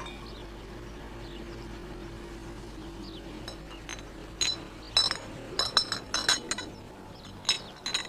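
Small glass dish clinking: about a dozen light, ringing taps in quick clusters, starting about three and a half seconds in.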